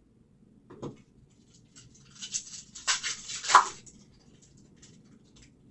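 A trading card pack's wrapper torn open and handled, with a short crinkle about a second in, then a couple of seconds of tearing and crinkling, loudest near the middle.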